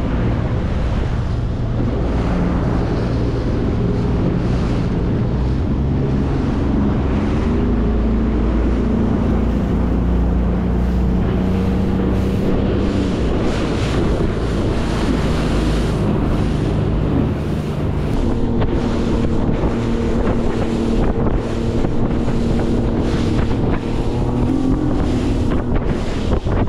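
Outboard motor of a Highfield Sport 390 RIB running under way, its pitch stepping up and down a few times, with heavy wind on the microphone and water rushing past the hull. In the last third, a run of short knocks as the hull hits the chop.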